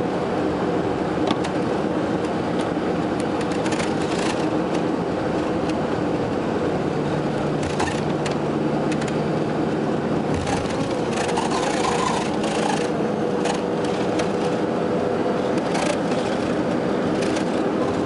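Car engine and tyre noise heard from inside the moving car, steady, with scattered light clicks and rattles.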